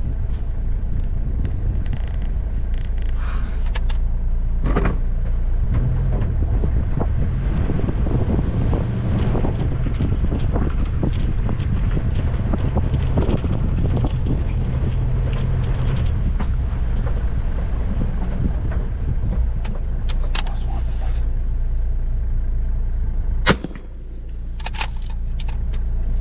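Four-wheel-drive vehicle driving slowly over a rough dirt track, the engine running steadily under scattered rattles and knocks from the body and gear. A sharp click about three-quarters of the way in, after which the engine note drops briefly and then builds again.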